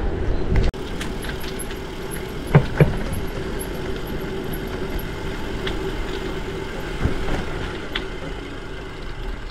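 Steady rolling and wind noise from a gravel bike on the move, with two sharp knocks close together about two and a half seconds in.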